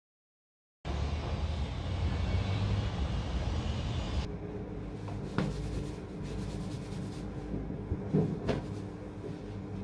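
Interior noise of a moving metro train: a steady low rumble of the carriage running, which gives way about four seconds in to a quieter steady hum with a few sharp clicks.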